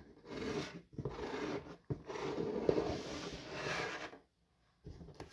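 A hand rubbing and sliding over a sheet of paper lying on a table, in three stretches of rustling, the last and longest about two seconds, then stopping.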